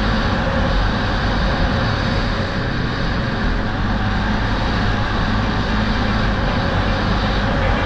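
Polaris Sportsman ATV engine running steadily under way on a dirt forest track, with a constant rush of wind and tyre noise over a helmet-mounted microphone.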